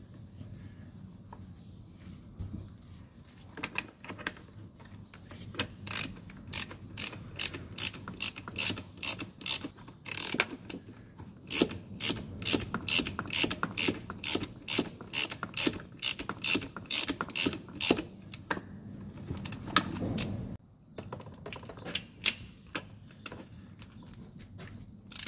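Hand ratchet wrench clicking in short, regular strokes, about two a second, as a starter mounting bolt is run in, sparser near the start and again near the end.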